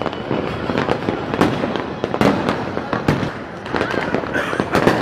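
Fireworks and firecrackers going off all around, a dense, irregular string of bangs and pops over a constant crackling din.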